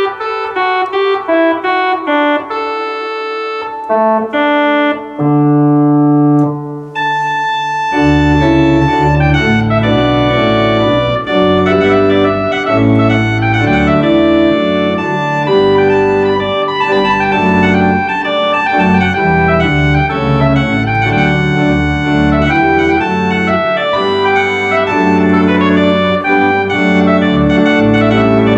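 Viscount Sonus 60 Physis digital organ sounding its tuba stop, a strong reed solo stop: a melody line at first, joined about eight seconds in by full organ chords and a deep pedal bass, with the tuba standing out on top.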